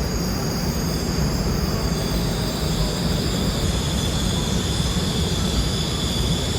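Passenger train running on the rails: a steady rumble and rushing noise with a faint, high, steady whine over it.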